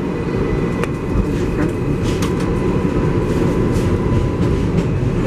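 R188 subway train in motion, heard from inside the car: a steady rumble of wheels on rail with a steady high whine and scattered sharp clicks.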